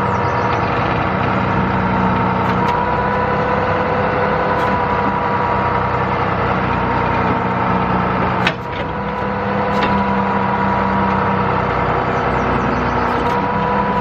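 Big John 65-inch tree spade's hydraulics and engine running hard, a steady whine over engine noise, as the spade blades are forced down into hard, rocky, root-filled ground. The whine shifts pitch slightly a few times and dips briefly about two-thirds of the way through, with a few sharp clicks.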